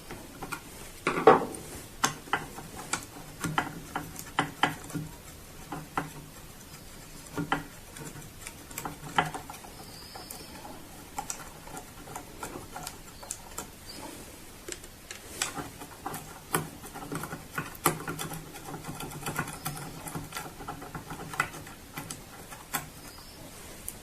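Crosshead screwdriver undoing the small screws on a printer's top plate, with handling of the plate: irregular small clicks, taps and scrapes of metal and plastic.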